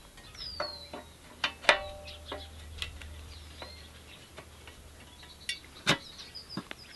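Metal paramotor frame tubes clicking and knocking as the upper and lower main-frame sections are pushed together by hand, one knock about two seconds in with a short metallic ring.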